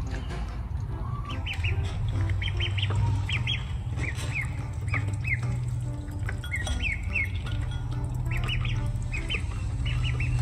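Ducklings peeping: short, high cheeps in quick runs of two to five, repeating over and over, over a low steady hum.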